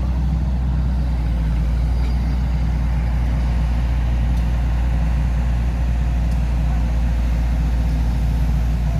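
A heavy engine idling steadily: a deep, even rumble.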